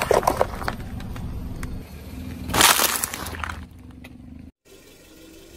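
A car tyre rolling over white paper cups, crumpling them with a quick run of crackling crunches at the start over the low rumble of the car. About two and a half seconds in comes a loud, brief crunch-and-splat as a plastic bag of eggs is flattened under the tyre.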